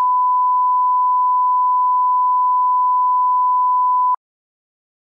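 Steady 1 kHz reference tone that plays with television colour bars, a single unbroken beep that cuts off suddenly about four seconds in.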